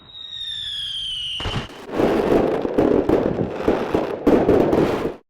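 Aerial fireworks: a high whistle falling slightly in pitch for about a second and a half, then a dense run of crackling and sharp bangs that cuts off suddenly near the end.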